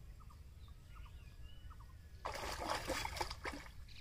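Faint bird chirps, then, about two seconds in, loud splashing and sloshing of pond water.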